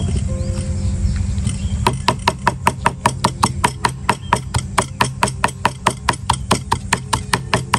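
Background music for about two seconds, then a knife chopping rapidly and evenly on a cutting board, about five strokes a second, over the music.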